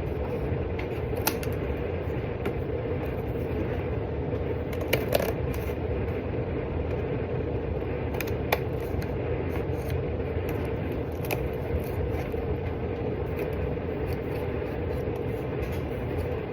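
A steady droning background hum, with a few light clicks and taps spread through it.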